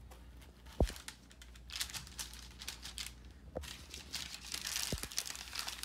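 A large kitchen knife sawing down through a crumbly baked oat crust on parchment paper, giving a dry crunching and crinkling. Three dull knocks sound, the first about a second in and the loudest.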